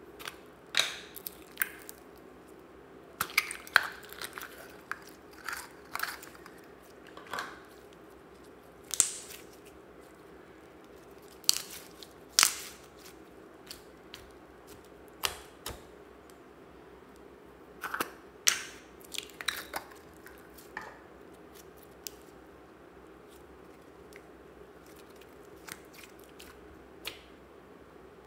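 Slime being squished and pressed by hand, giving scattered sharp sticky pops and crackles in small clusters, with quiet gaps between.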